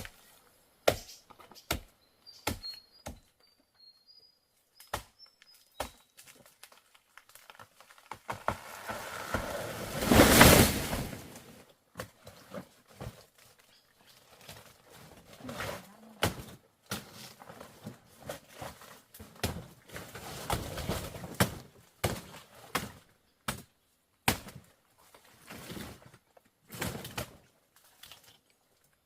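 Scattered knocks and thuds of handwork, irregularly spaced, with a loud rustling swish about ten seconds in. A few faint high chirps sound near the start.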